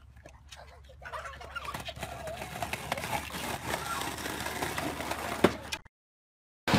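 Skateboard wheels rolling over a concrete sidewalk, a rumble that grows louder with scattered clicks and one sharp knock about five and a half seconds in. The sound cuts off suddenly near the end.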